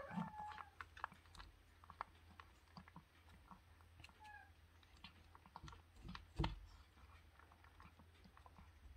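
Cat eating dry kibble from a plastic bowl: faint, irregular small crunches and clicks of chewing, with one louder click about six seconds in.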